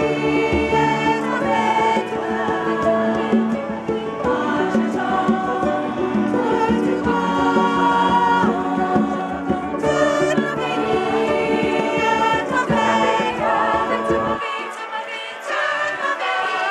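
Choir singing in parts with piano accompaniment, in long held chords. Near the end the lowest notes stop and the higher voices carry on.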